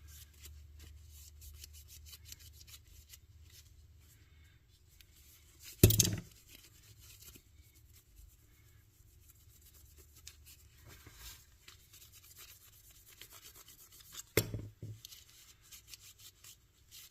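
Hands wiping and handling the small plastic parts of a radio control head: faint rubbing and light clicks, with two louder knocks, one about six seconds in and another about fourteen seconds in, as parts are set down.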